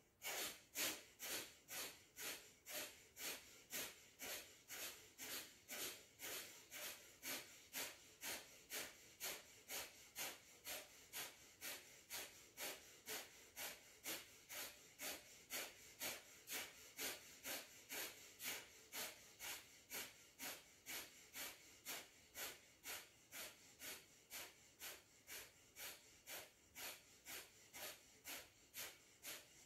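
Kapalabhati-style pulsed breathing: sharp, forceful exhalations pushed out through the nose, about two a second in a steady even rhythm.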